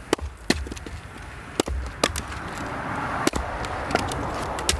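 Sharp wooden knocks of firewood being split with a Fiskars axe on a chopping block, with split pieces clacking against each other. There are about six knocks, one of them with a heavier thud, and a rustle in the middle.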